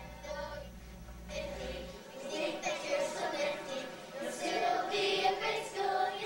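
Children's choir singing, louder from about two seconds in.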